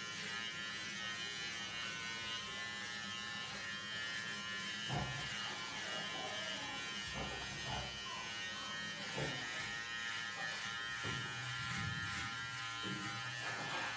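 Electric hair clipper buzzing steadily while it trims a child's hair.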